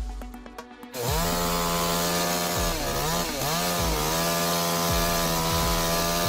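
Chainsaw running at high revs, starting about a second in; its pitch dips briefly twice, near three and four seconds in, then steadies again.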